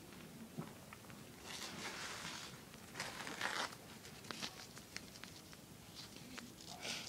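A person's quiet, breathy inhalations, three of them, the second the strongest, with small clicks and rustles between.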